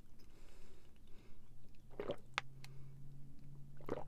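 A person drinking from a plastic water bottle: a few short gulps and swallows. A low steady hum joins about a second in.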